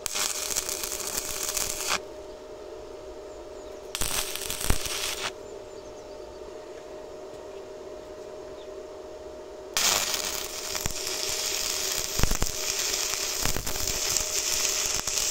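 Stick (MMA) welding arc crackling and hissing as a steel base plate is welded on: two short tacks, the first about two seconds long and the second about one second, then from about ten seconds in a continuous bead.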